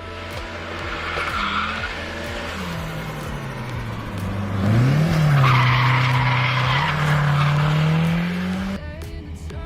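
Volvo 740 with a four-cylinder red-block engine (B230 block, turbo pistons, 16-valve head) revving hard while drifting, with tyres squealing. The engine pitch climbs sharply about five seconds in, the tyre squeal is loudest from then until it cuts off near the end.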